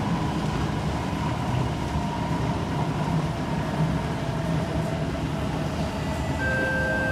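Kawasaki C151 metro train heard from inside the car while running at speed: a steady low rumble of wheels on rail. Near the end, several steady electric whines join it, from the train's permanent-magnet synchronous motor (PMSM) traction equipment.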